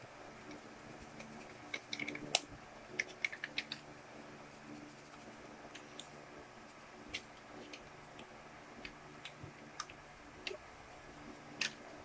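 Small clicks and crinkles of a plastic toy-surprise car container and a foil wrapper being handled: a quick cluster about two seconds in, then scattered single ticks.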